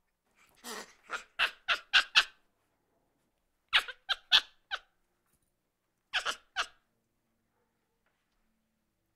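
Angry monkey giving short, sharp, high calls in three quick bursts: a run of about six, then about five, then three, with pauses between.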